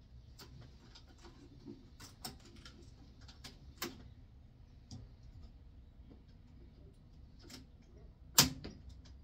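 Heavy cylinder-arm leather stitching machine sewing thick saddle-skirting leather slowly, giving separate clicks and knocks at uneven spacing rather than a steady run. A single louder knock comes about eight seconds in.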